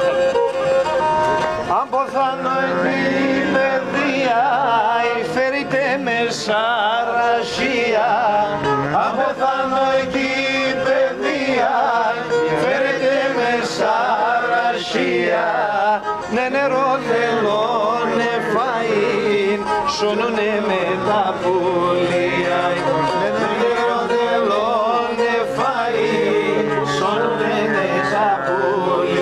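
Live Pontic Greek folk music led by a bowed string instrument playing a wavering, ornamented melody.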